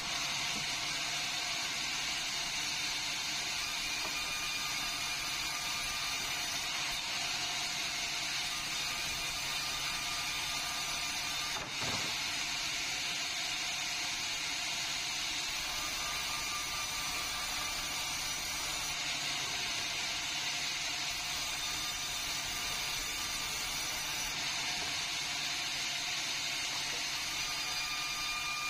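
Vertical band sawmill running with its blade cutting lengthwise through a meranti log: a steady mechanical noise that dips briefly once near the middle.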